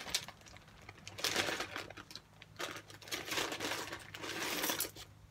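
Small metal padlocks and keys clinking together while a plastic bag rustles, as they are handled and rummaged through in a series of irregular clicks and crinkles.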